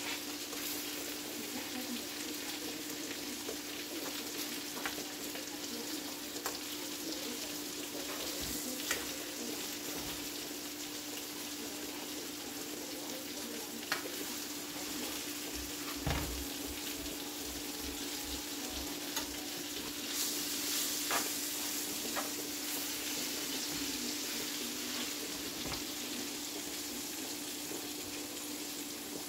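Chicken breasts sizzling as they fry in a skillet, with scattered sharp clicks of metal tongs against the pan as the pieces are turned. The sizzle swells for a few seconds about two-thirds of the way through, over a steady low hum.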